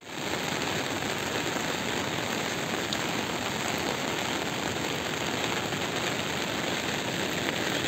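Steady rain falling on a wet road.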